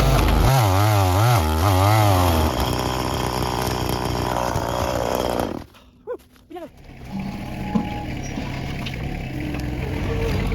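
Chainsaw cutting tree stumps, its engine pitch wavering rapidly up and down under load. It cuts off abruptly about five and a half seconds in; after a short gap a lower, steadier engine sound carries on.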